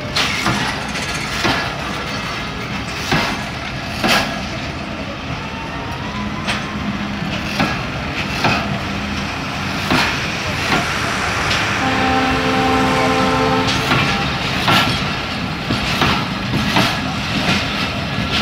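Passenger train coaches rolling past close by, their wheels clacking over the rail joints with a sharp knock about once a second. About twelve seconds in, the train's horn sounds for about two seconds.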